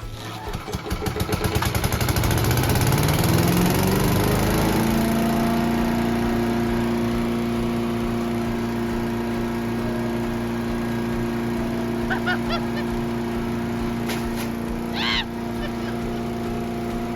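Craftsman wood chipper's small engine catching and spinning up over about four seconds, then running steady at full speed: its first test run after a new carburetor, air filter and spark plug.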